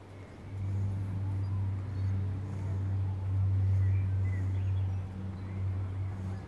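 A steady low motor hum, like an engine running, that comes in about half a second in.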